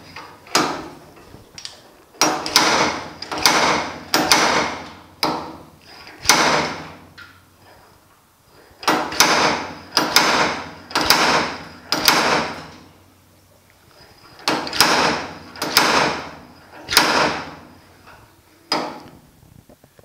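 Slide hammer's sliding weight slammed against its stop, about seventeen sharp metal clanks in three runs with short pauses between, each ringing briefly through the cab's sheet metal. It is pulling the pushed-in mirror-mount area of a 1950 Chevy truck cab back up to flush.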